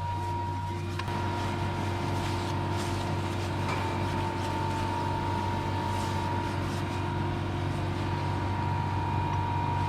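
Metalworking machine tool running steadily, with a constant high whine over a low hum and a faint click about a second in.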